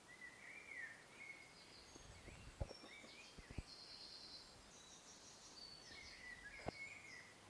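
Faint songbirds singing short warbled and whistled phrases, on and off. Three sharp clicks stand out: two about a second apart in the middle and one near the end.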